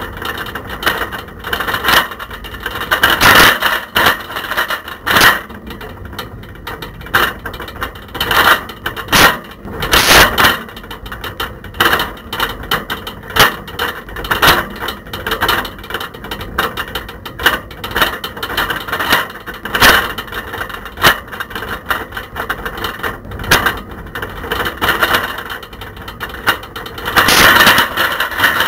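A camera rattling and knocking loose in a bicycle basket as the bike rides along a path: a continuous, irregular clatter with louder jolts about three seconds in, around ten seconds and near the end.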